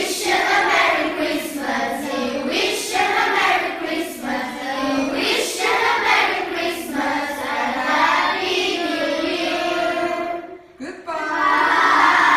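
A class of schoolchildren singing together in chorus. The voices drop out briefly near the end, then come back louder together.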